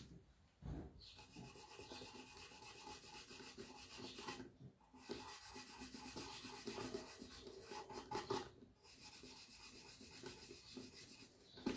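Faint dry rubbing of a paint brush worked over paper towel to take off excess patina, in two stretches of a few seconds.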